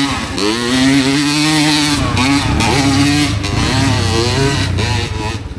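Dirt bike engine revving hard on a steep hill climb: the pitch rises and holds high, then from about two seconds in the throttle is chopped on and off, dropping to a lower putter near the end.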